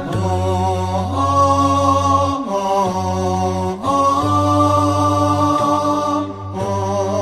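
Wordless interlude of an a cappella Islamic nasheed: layered voices hold long notes over a low hummed drone, sliding to a new chord every second or two.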